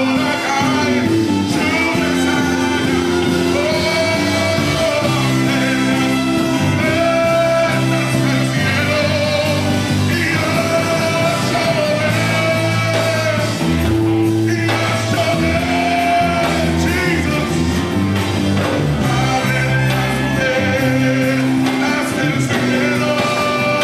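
Live Spanish-language worship song: a male lead singer sings into a microphone over a full band with keyboards, with long held notes over a steady bass line.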